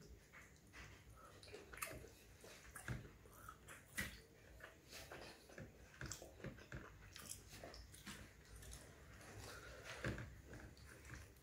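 Close-miked eating sounds: chewing and wet mouth clicks on roti and fish curry, with soft squishing as fingers work the food on the plate. There are irregular small clicks throughout, and the sharpest come about four seconds in and near the end.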